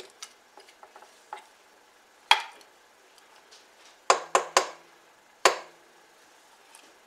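Sharp knocks of a spatula and a metal measuring cup against a stainless steel stand-mixer bowl as sour cream is scraped in. There is one knock about two seconds in, a quick run of three around four seconds, and one more a second later; the metal bowl rings briefly after the later ones.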